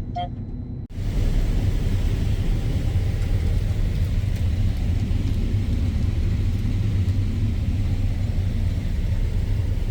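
Combine harvester running while harvesting corn: a steady, loud machine rumble that starts abruptly about a second in.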